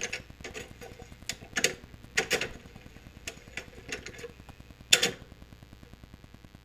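Surface noise of an old vinyl record after the song has ended: a fast run of small crackling ticks over a faint hiss, broken by a few louder pops.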